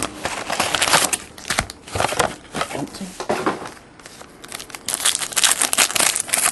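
Plastic wrapping crinkling and a trading-card pack wrapper tearing as a hobby box of football cards is unwrapped and a pack ripped open. Irregular crackles throughout, busiest in the last second and a half.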